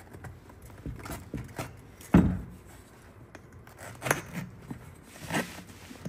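Utility knife cutting and scraping into the rubber air-spring bellows of a Lexus RX450h air strut, in a few irregular strokes with hand-handling knocks; the loudest, a dull knock, comes about two seconds in.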